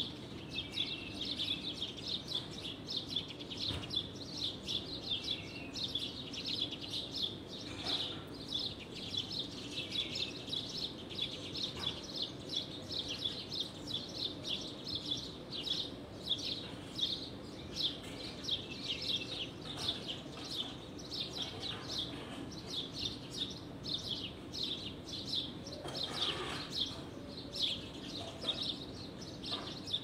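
Forest birds chirping in a continuous dense chorus of short, high chirps, over a steady low background hum.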